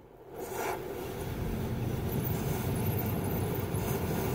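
Oxy-fuel cutting torch burning with a steady hiss as it melts away a rusted shock-mount nut to free the broken shock bolt. The hiss rises over the first half second, then holds steady.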